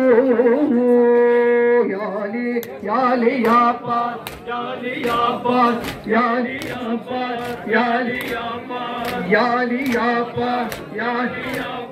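Voices chanting a nohay, a Shia mourning lament, with a long held note about a second in. From a couple of seconds in, sharp hand slaps of matam chest-beating keep a steady beat of a little over one a second under the chant.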